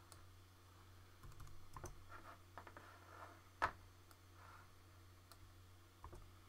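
Computer keyboard and mouse in use: a few scattered, quiet keystrokes and clicks, with one sharper click about three and a half seconds in, over a faint steady low hum.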